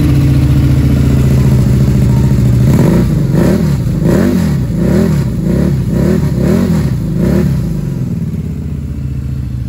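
Harley-Davidson Night Rod's 1250 cc V-twin through Vance & Hines exhausts, just started and idling steadily. From about three seconds in it is revved in a run of about seven quick throttle blips, then settles back to idle near the end.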